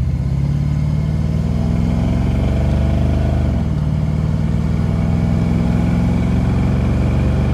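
Fox-body Ford Mustang's 5.0 V8 accelerating, heard from inside the cabin: the engine note climbs, drops at an upshift about three and a half seconds in, then climbs again and drops at another shift near the end.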